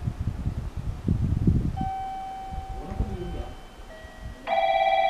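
Station platform train-approach warning: a few electronic chime tones, then about four and a half seconds in a loud, rapidly trilling electronic bell starts, signalling that a train is approaching.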